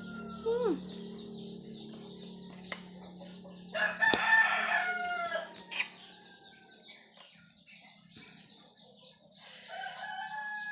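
A rooster crowing: one loud drawn-out crow about four seconds in, and another fainter crow near the end. Small birds chirp throughout, with a few sharp clicks and a steady low hum in the first half.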